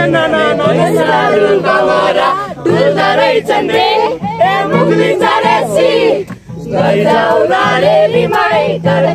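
Several voices singing a Nepali song together to an acoustic guitar.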